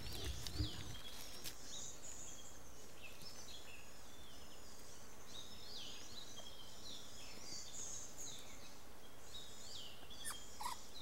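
Faint chorus of wild birds chirping and whistling, many short varied calls over a steady outdoor hiss, with a soft low bump about half a second in.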